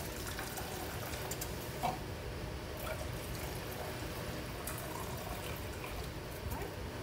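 Hot water being poured into a measuring cup, a steady pour with a few light clinks.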